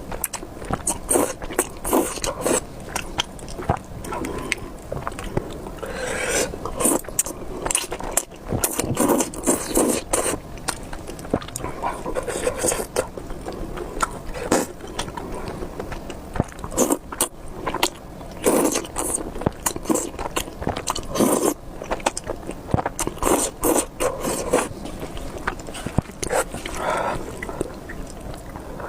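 Close-miked eating sounds of spicy beef noodles: repeated slurps and chewing, with many sharp wet clicks throughout.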